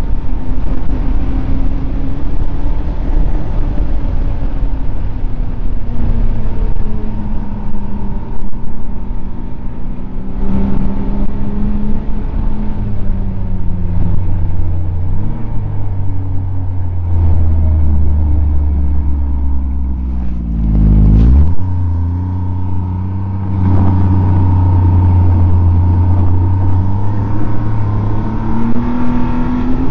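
Snowmobile engine running under way, its pitch rising and falling with speed; about two-thirds of the way through the revs drop sharply, then pick up again. A steady high whine runs alongside.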